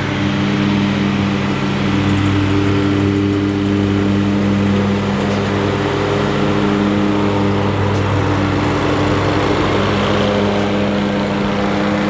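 Exmark Turf Tracer walk-behind mower's Kohler EFI engine running steadily at a constant speed while mowing grass.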